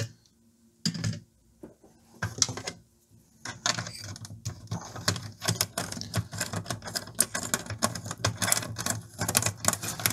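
Plastic and metal parts of an amplifier's front panel clicking and rattling as they are worked loose by hand. A few single clicks come first, then a fast, irregular run of clicks and rattles starts after about three and a half seconds.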